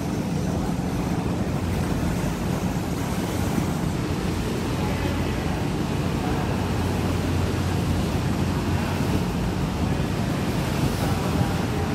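Steady low hum of ship engines over rough, choppy sea, with wind buffeting the microphone.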